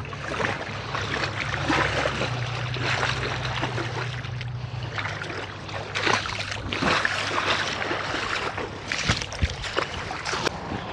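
Feet wading and splashing through shallow seawater, with a low steady hum under the first half that fades out about halfway through.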